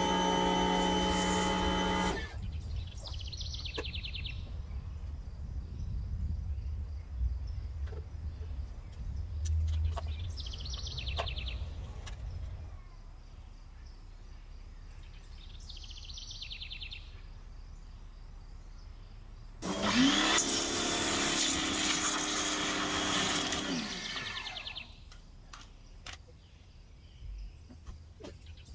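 A pressure washer's motor humming steadily, then cutting off about two seconds in, leaving outdoor quiet with a bird chirping every few seconds. About twenty seconds in the pressure washer starts again, its motor pitch rising as it spins up, and sprays water hard for about four seconds before stopping.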